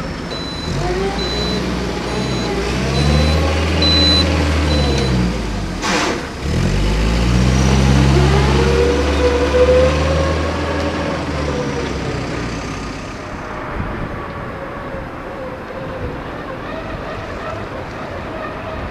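Cars driving past close by, their engine note dropping in pitch as each goes by, twice in the first half. Over the first few seconds a reversing alarm beeps at a steady high pitch. Later a quieter, steady engine note from a site dumper running.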